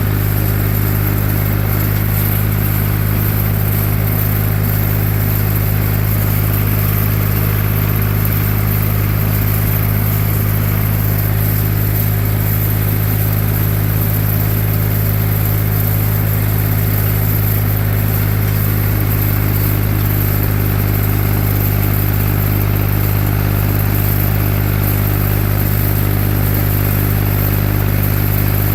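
Tractor engine running at a steady speed, with an even, unchanging drone.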